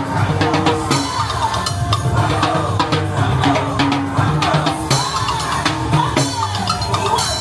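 Background music with a steady drum beat and bass, with a singing voice over it.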